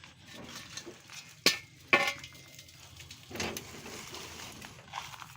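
Two sharp clinks of hand tools knocking together, about a second and a half and two seconds in, amid fainter scattered knocks and rustling.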